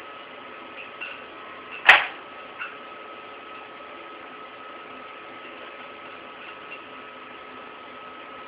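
A single sharp knock about two seconds in, then a lighter click, from handling the gas hose fittings at the welder's argon tank. Under it a steady hum with a thin high tone.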